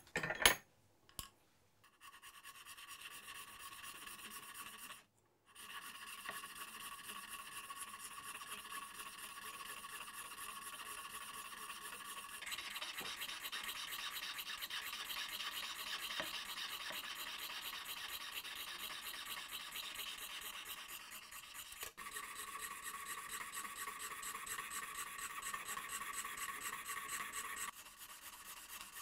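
Jeweller's saw cutting through a mother-of-pearl disc: a steady run of rapid, fine rasping strokes, after a couple of sharp knocks at the start.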